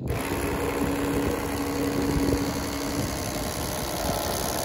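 Electric fillet knife running, its motor buzzing steadily as the reciprocating blades slice a northern pike fillet off its skin; a steady hum in the sound drops away about three seconds in.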